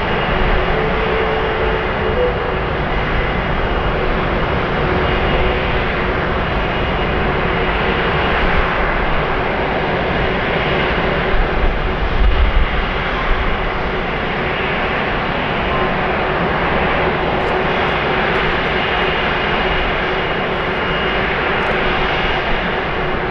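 Twin Pratt & Whitney PW4000 jet engines of an Airbus A330-300 at takeoff power, a steady jet noise carrying a faint steady hum.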